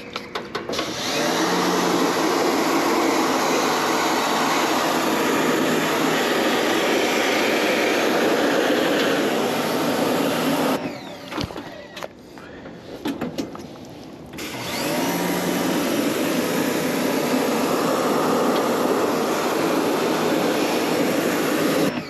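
Pressure washer spraying water onto an air conditioner's evaporator coil at turned-down pressure, a steady spray. It stops about 11 seconds in, leaving a few seconds of small clicks, then starts again and runs on.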